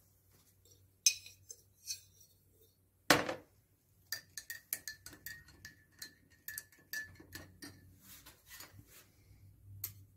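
Metal spoon stirring coffee into water in a drinking glass, clinking quickly against the glass, which rings with a steady tone for about four seconds. Before the stirring come a few light clicks and one knock on the table, about three seconds in.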